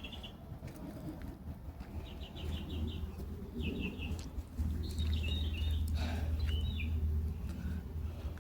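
A small songbird chirping in several short, rapid trills of high notes, over a low rumble that gets louder about halfway through.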